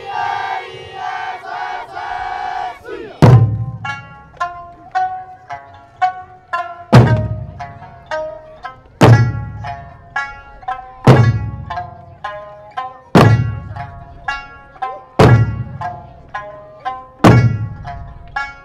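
Eisa drumming with song: a voice holds a long opening note. About three seconds in, the large barrel drums start striking together roughly every two seconds, with lighter drum strokes and a sung melody between the heavy beats.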